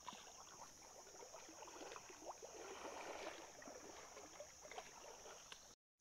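Faint swishing and trickling of creek water stirred by legs wading through it, over a steady high insect buzz. The sound cuts off abruptly near the end.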